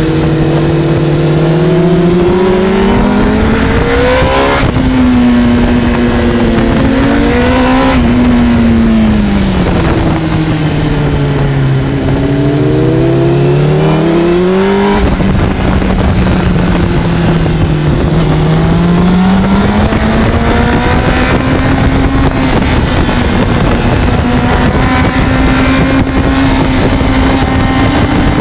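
Honda CBR600RR inline-four engine heard onboard over heavy wind rush on the microphone. It revs up and falls away repeatedly as the bike accelerates and rolls off, with a sudden drop in pitch at a gear change about five seconds in and again about halfway through.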